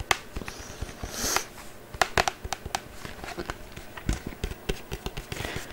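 Irregular small clicks and taps close to the microphone, with a brief breathy hiss about a second in.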